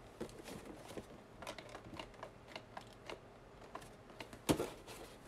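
Faint, scattered clicks and crinkles of cardboard-and-plastic action-figure boxes being handled, with one louder knock about four and a half seconds in.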